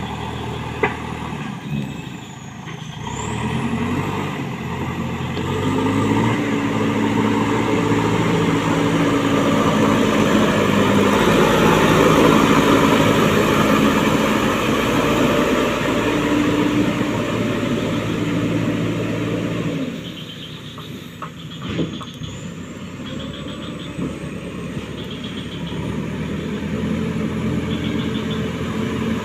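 JCB backhoe loader's diesel engine working under load as the front bucket pushes and levels dirt; the revs rise about six seconds in, stay high, and drop back near twenty seconds. A sharp knock comes about twenty-two seconds in.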